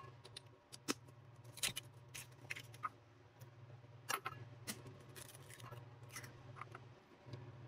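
Eggs being cracked and emptied into glass bowls: scattered light taps and clicks of eggshell against glass, over a faint steady low hum.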